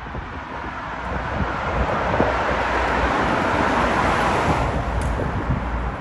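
A vehicle passing on the road: a rush of tyre and road noise swells for about three seconds and then fades, over wind rumble on the microphone.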